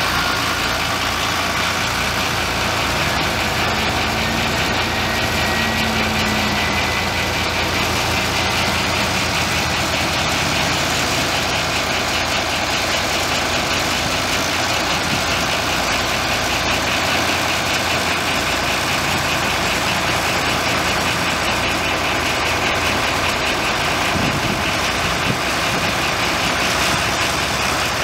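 The Caterpillar C6.6 ACERT six-cylinder diesel of a Challenger MT525B tractor running at a steady, low engine speed while the tractor is driven slowly.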